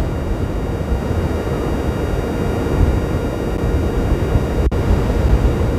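Steady low rumble of wind and surf on a storm-battered beach.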